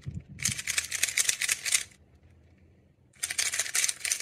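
Magnetic 3x3 speed cube being turned fast in the hands: a rapid clatter of plastic layer-turn clicks in two spells, with a pause of about a second in the middle. A soft knock at the start as a cube is set down.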